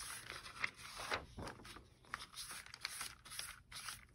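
Sponge wiping mineral oil into a sheet of printed copy paper: faint, repeated soft scraping strokes of sponge on damp paper.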